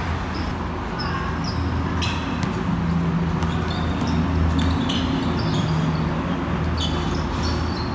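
Basketball game on a concrete court: short sneaker squeaks and the sharp knocks of a ball bouncing come every second or so, over a steady low rumble.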